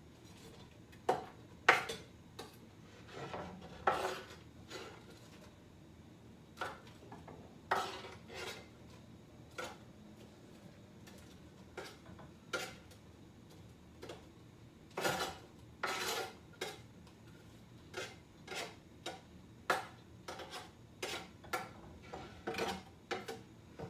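Kitchen clatter as chopped red onions are scraped off a wooden cutting board into a blue enamelled pot with a green spatula: irregular knocks, clinks and scrapes of spatula and board against the pot. The loudest knocks come about two seconds in, about four seconds in, and around fifteen to sixteen seconds in.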